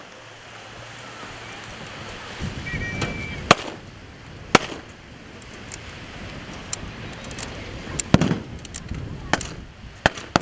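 Blank gunshots fired at irregular intervals: about half a dozen sharp cracks, singly and a few in quick succession around eight seconds in.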